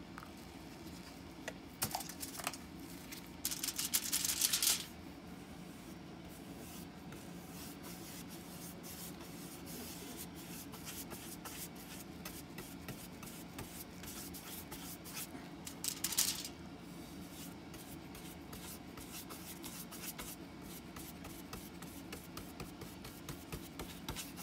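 Foam brush rubbing dye stain into bare birch wood in quick, dry scrubbing strokes, which turn steady and rapid in the second half. Louder rustles of handling about two and four seconds in and again around sixteen seconds, over a faint steady hum.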